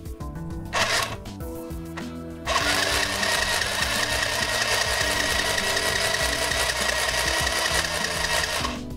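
Sinbo mini portable sewing machine stitching, foot-pedal driven: a short run about a second in, then a steady run of about six seconds with a constant whine, starting about two and a half seconds in and stopping just before the end.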